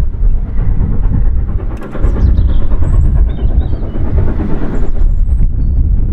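Steam locomotive approaching round a curve with a goods train, a steady low rumble of the engine and wagons on the track that grows a little louder about two seconds in.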